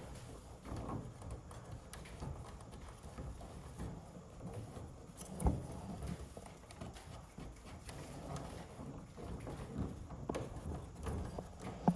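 Scattered light knocks and taps, irregularly spaced, with one sharper knock about five and a half seconds in.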